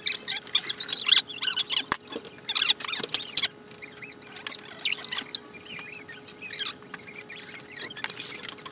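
Rapid, high-pitched squeaky chirps in clusters, the voices and work noises of fast-forwarded audio, over a faint steady hum. It cuts off suddenly at the end.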